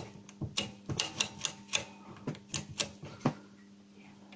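Front-panel controls of an S1-90 oscilloscope being turned by hand, giving about a dozen sharp, irregular clicks over three seconds, then stopping.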